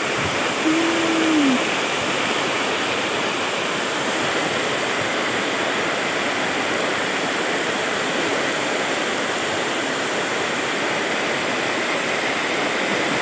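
Steady rush of a river in flood, its fast muddy water running over rocks, mixed with heavy rain. A short falling tone sounds once about a second in.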